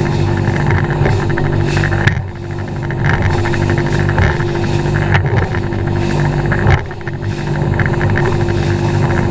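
Outboard motor of a bass boat running at speed across rough water, a steady drone with the hull slapping the waves. Twice, about two and seven seconds in, a hard bang from the hull is followed by a brief dip in the engine sound.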